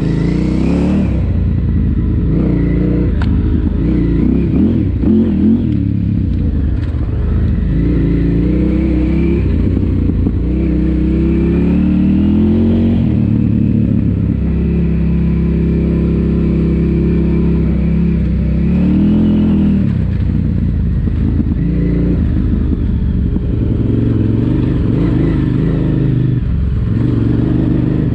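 KTM 950 Super Enduro's V-twin engine running under way, its revs rising and falling repeatedly with the throttle and held steady for several seconds in the middle.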